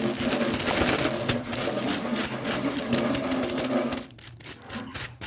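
A steady, dense mechanical rattle with a low hum that drops off abruptly about four seconds in, followed by a few sharp clicks.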